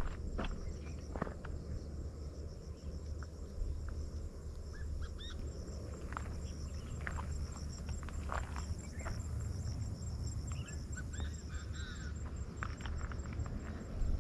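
Insects trilling steadily, with a high, evenly pulsed note running through, over a low rumble. Short bird-like chirps and a few scattered clicks come in here and there.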